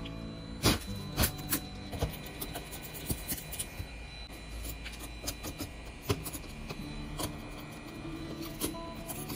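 Scattered sharp clicks and taps of small repair tools on an iPhone's metal housing, over quiet background music.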